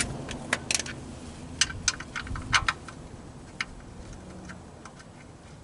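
Irregular sharp metallic clicks and clinks of a socket wrench being worked a short turn at a time on a car's oil drain plug, loudest in the first half and thinning out towards the end.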